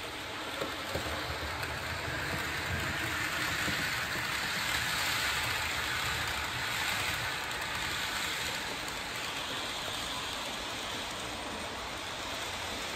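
Model freight train of tank wagons rolling along the layout's track, a steady rattling whir of wheels on rail that swells as it passes near and then eases, with two small clicks about half a second and a second in.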